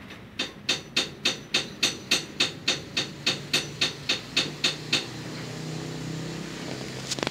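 A quick, even run of sharp knocks, about three to four a second, stops about five seconds in. A low steady hum follows.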